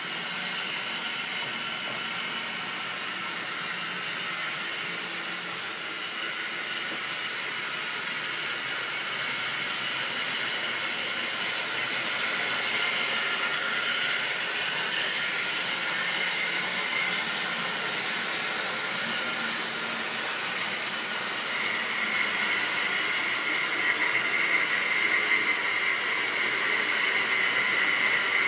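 OO-gauge model trains running on the layout: the steady whirr of small electric motors and the rattle of wheels on the track, growing louder as trains pass close by. A high steady whine joins about three quarters of the way in.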